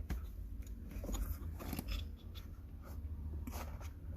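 Scattered light clicks and scrapes of hands prying at the parts of a car's manual gear shifter assembly, over a steady low hum.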